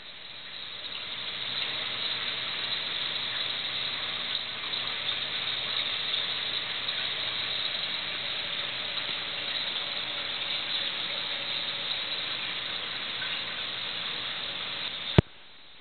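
Steady hiss of reef aquarium water circulation, with a faint low hum under it, fading in over the first two seconds. A single sharp click comes near the end, and the hiss cuts off abruptly with it.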